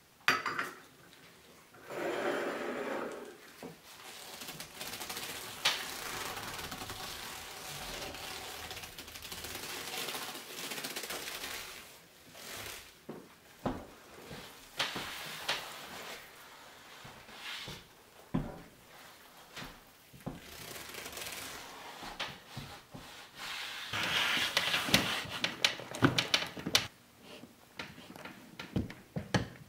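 Thin leather gloves and leather clothing rubbing and creaking as the hands move, with scattered light clicks and knocks. The rubbing is loudest, with the most clicks, a little over three-quarters of the way through.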